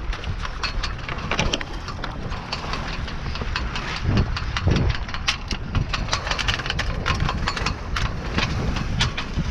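Wind rumbling across the microphone of a small sailboat under sail, with water splashing and slapping irregularly against the hull.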